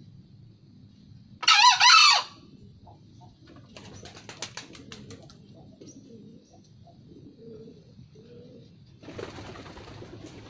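Green junglefowl crowing once: a short, loud, high and wavering crow in two parts, about a second and a half in. A run of sharp clicks follows a couple of seconds later, and a rushing noise starts near the end.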